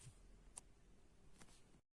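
Near silence: faint room tone with a couple of small ticks.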